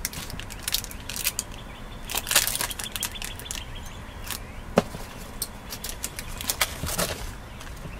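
Small plastic bead bag crinkling and crackling as it is handled and opened, an irregular run of sharp crackles, loudest a little over two seconds in and again near five seconds.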